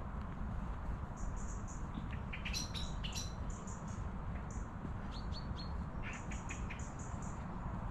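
Small songbirds chirping in trees and hedges: short high notes in quick groups of three or four, with a louder run of chirps about two and a half seconds in and again around five seconds in, over a steady low rumble.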